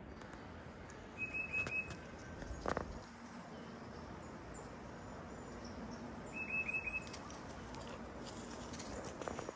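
A bird calling twice, about five seconds apart, each call a quick run of four or five short high notes. A few sharp clicks or knocks come in between, over a steady outdoor hiss.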